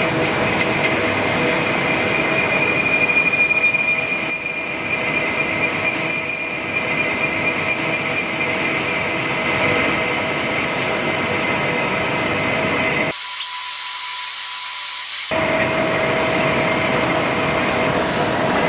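Metal lathe running and cutting, a steady machine noise with a high continuous whine from the cut. About 13 seconds in, the sound switches abruptly for two seconds to a thinner, higher-pitched version, then returns.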